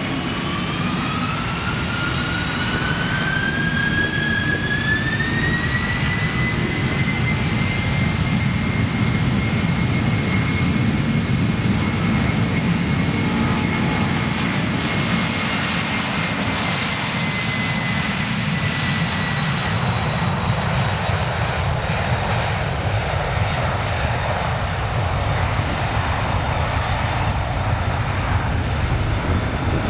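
Boeing 747 freighter's four turbofan engines spooling up to takeoff power, a whine rising in pitch over the first several seconds. The whine then holds steady over a loud, steady jet rumble through the takeoff roll, thinning out about two-thirds of the way through.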